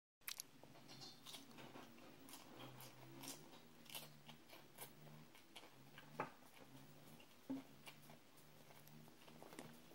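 A small child biting and chewing raw vegetable sticks: soft, irregular crunches, faint.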